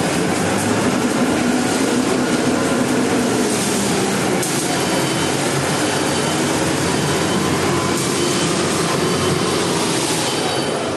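Self-loading concrete mixer running with a steady, loud mechanical rumble and rattle of engine and machinery.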